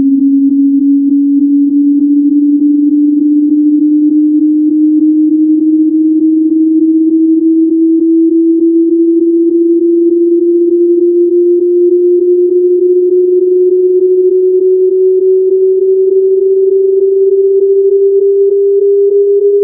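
A single pure sine-wave tone, generated by computer, climbing slowly and steadily in pitch as part of a 20 Hz to 410 Hz frequency sweep.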